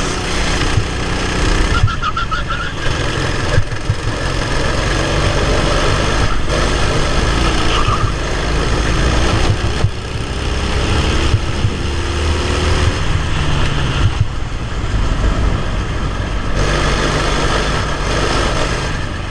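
Racing kart engine heard from a camera mounted on the kart at race pace, the engine note rising and falling through the corners over a heavy low rumble, with scattered knocks.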